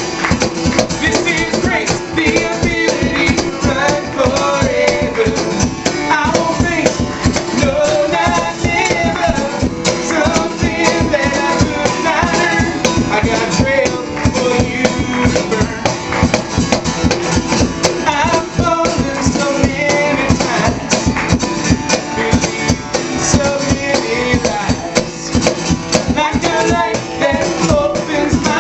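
Live band music: guitar over a steady beat played on a cajon, with a melody line bending in pitch above it.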